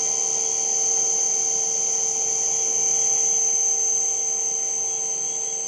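Cat 40 spindle of a Southwest Industries TRAK LPM vertical machining center running steadily at 5,500 RPM: a steady high-pitched whine over a fainter lower hum.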